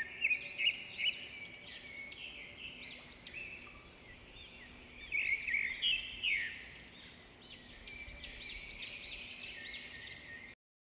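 Many small birds chirping and twittering over one another in quick, arching calls, busiest at the start and again in the middle. The sound cuts off abruptly near the end.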